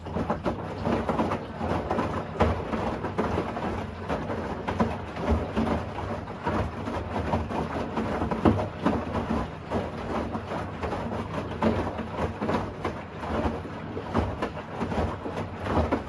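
Bosch Series 6 i-DOS front-loading washing machine in its wash phase: the drum turns, tumbling the load of underwear and socks through water with continual sloshing and splashing over a low, steady motor hum.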